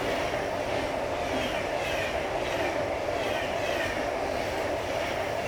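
High-speed train running on rails: a steady rail noise with a held mid tone and short falling high-pitched squeals repeating about twice a second.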